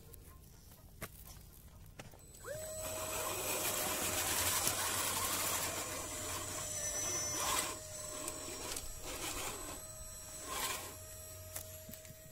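Electric motor and drivetrain of a scale RC crawler whining under load as it climbs; the whine comes in with a quick rise in pitch a couple of seconds in, then holds one steady pitch under a rustling hiss.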